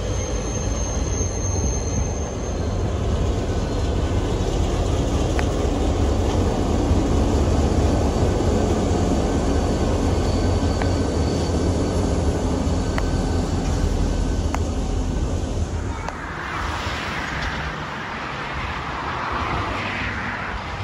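Freight train passing close, its lead B class diesel-electric locomotive B74 and a second diesel running with a deep steady rumble. About sixteen seconds in the rumble drops away to a lighter, hissier train noise.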